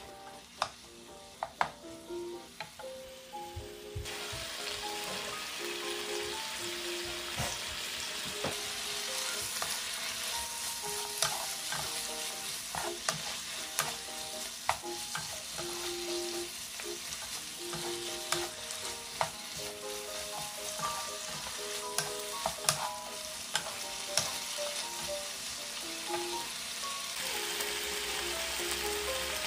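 Pork strips and sliced green pepper, onion and celery sizzling in a hot frying pan as they are stir-fried, with a wooden spatula and a red spoon clicking and scraping against the pan. The sizzle grows louder about four seconds in.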